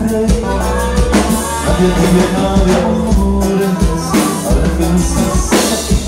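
Norteño band music playing a dance tune, with a steady bass line and drum-kit beat under sustained melody instruments.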